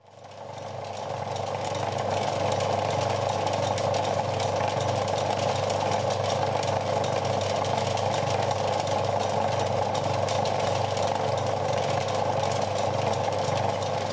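Film projector running: a steady mechanical clatter of rapid fine ticks over a low hum, fading in over the first two seconds and then holding level.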